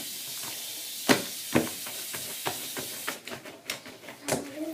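Spoon or spatula knocking against a bowl while slime is being stirred, with a steady hiss that stops about three seconds in.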